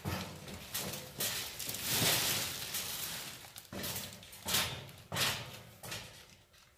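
Rustling, scraping and a few knocks of bags and boxes being moved about, with a long noisy swell about two seconds in.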